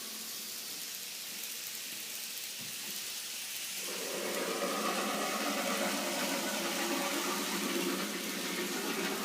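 Steam locomotive sound effect: a steady hiss of steam that grows fuller and louder about four seconds in.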